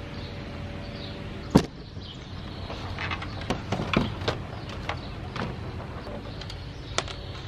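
Small scattered clicks and taps of a screwdriver backing screws out of the plastic bottom case of a Texas Instruments TI-99/4A computer, with screws set down on a wooden tabletop. One sharp knock about one and a half seconds in is the loudest sound.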